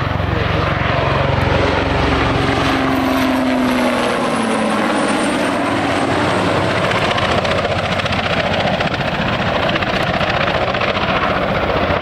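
AS332 M1 Super Puma helicopter flying past in a display pass: loud steady rotor and twin-turboshaft noise. A high turbine whine and a lower tone drop in pitch a few seconds in as it goes by, and the deep rumble fades.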